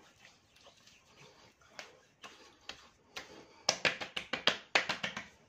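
Palms slapping aftershave onto freshly shaved cheeks: a few soft pats, then a quick run of sharp slaps, about five a second, starting a little past the middle.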